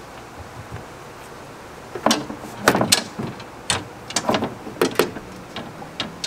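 Anchor poles being set into their plastic holder clips on an aluminum jon boat's gunwale: a run of sharp clicks and knocks, some in quick pairs, starting about two seconds in.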